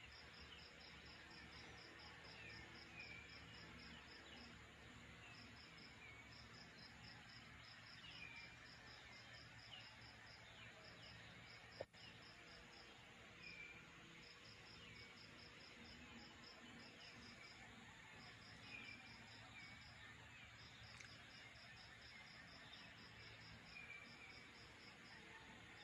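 Faint night ambience of insects, likely crickets, chirping in trains of quick, even, high pulses broken by short gaps, with short falling chirps every couple of seconds and a single sharp click about halfway through.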